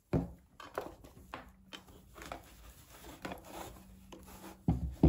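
Cloth drawstring lunch bag being opened and handled: irregular fabric rustling and rubbing, with a soft thump just after the start and another near the end.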